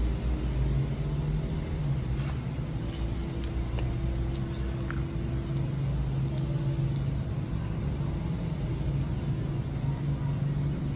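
Steady low mechanical hum of a motor or engine running, with a few faint clicks of plastic mount parts being handled around the middle.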